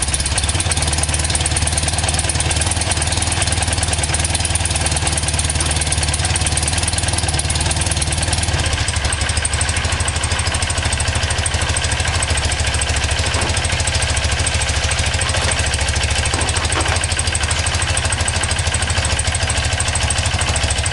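BMW R100GS air-cooled flat-twin engine idling steadily during ignition timing adjustment; its note changes slightly about eight seconds in.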